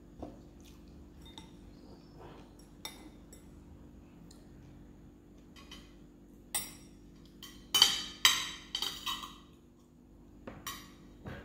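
Metal cutlery clinking and scraping against a ceramic bowl and plate while eating: a few light taps early, then a run of louder ringing clinks from about six and a half seconds in, loudest around eight seconds, and one more near the end.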